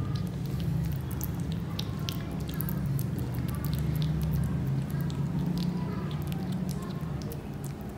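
A one-month-old kitten eating wet cat food from a plastic lid: quick, irregular wet chewing and lip-smacking clicks, over a steady low hum.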